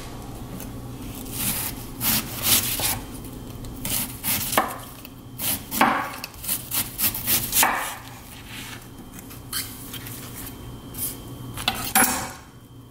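Chef's knife slicing thin layers off the cut face of a half red cabbage on a wooden cutting board, trimming away the old, moldy surface. It makes a run of irregular crisp cutting strokes, thickest in the first half and sparser toward the end.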